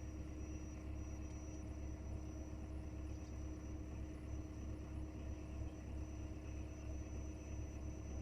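A motor running steadily with a low rumble and a faint steady whine.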